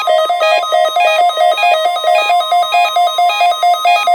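NOAA Weather Radio alert tone held steady during a weekly alarm test, with a rapid rhythmic beeping in two alternating pitches sounding over it.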